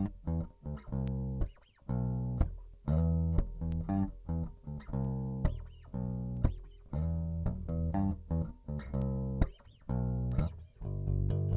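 Bass guitar being played: a run of plucked notes with short gaps between phrases.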